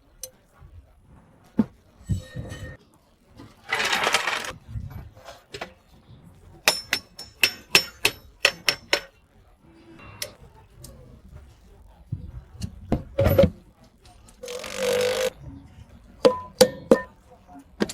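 Metal clinks, taps and knocks of hand tools and parts during e-rickshaw repair work, with a quick run of ringing metallic clicks about a third of the way in. Two short hissing bursts stand out, one just before the quick clicks and one near the end.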